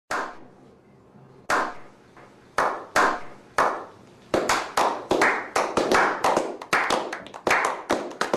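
A small group of people doing a slow clap. Single claps come about a second apart at first, then quicken and overlap into faster clapping from several hands after about four seconds.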